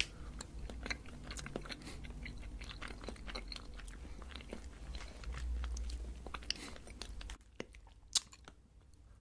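Close-miked chewing of a piece of strawberry cream roll cake, with a bite at the start and many small wet mouth clicks. The chewing quiets down about seven seconds in, leaving a few faint mouth clicks.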